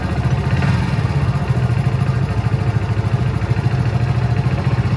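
Motorcycle engine idling steadily, its firing pulses even and unbroken.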